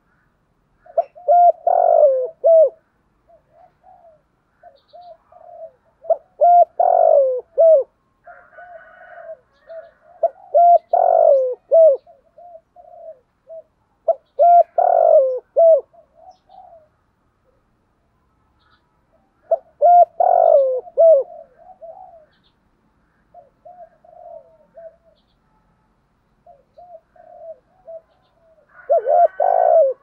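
Spotted dove cooing a voice type that Vietnamese keepers call giọng thổ. It gives six loud coo phrases at intervals of about four to five seconds, with a longer pause before the last, and quieter coos between them.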